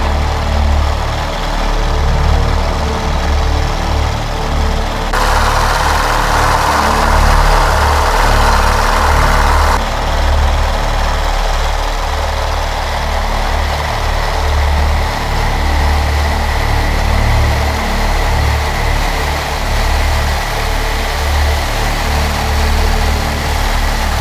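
Piston engine of an F4U-4 Corsair, a Pratt & Whitney R-2800 radial, heard from inside the cockpit in flight: a steady, pulsing low drone under rushing air. From about five to ten seconds in, a louder, brighter rush of air and engine noise sets in and then drops away suddenly.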